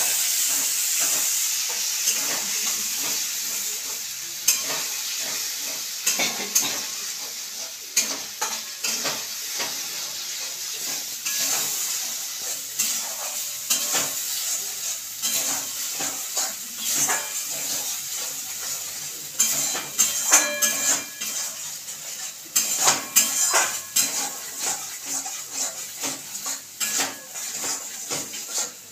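Masala paste frying in oil in a metal kadai, its sizzle strongest at first and fading, while a metal spatula scrapes and knocks against the pan in quick stirring strokes that come thicker near the end.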